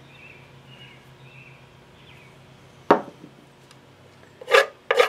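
Small wooden pattern pieces knocking on a wooden molding board inside the flask box: one sharp knock about three seconds in, then two louder knocks near the end.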